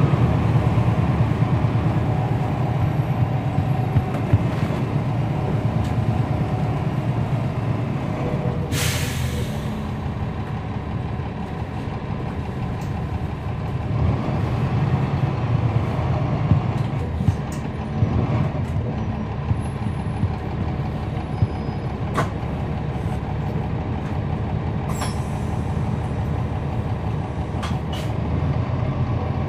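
Cummins ISL9 diesel of a NABI 40-SFW transit bus running steadily, heard from inside the bus, with a short sharp hiss of air brakes about nine seconds in. A few light clicks and rattles follow later on.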